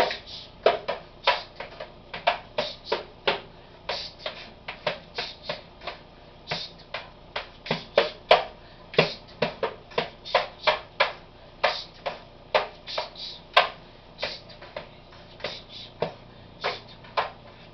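Improvised kitchen percussion: spoons tapping out a steady beat on kitchen containers and the counter, about three sharp taps a second.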